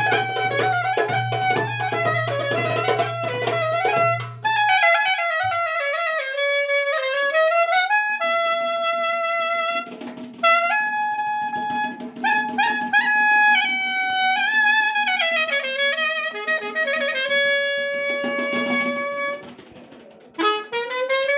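Live Dagestani wedding-band music: a melodic lead instrument plays over a driving drum rhythm, then the drums drop out after about four seconds. The lead carries on with a slow, freely ornamented solo of held and sliding notes over a sustained drone. Near the end the music fades briefly, and then the drums and full band come back in.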